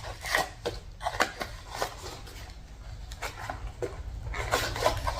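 Camera packaging being handled by hand: scattered clicks, taps and rustles of cardboard and plastic as a small accessory box is opened and its parts taken out.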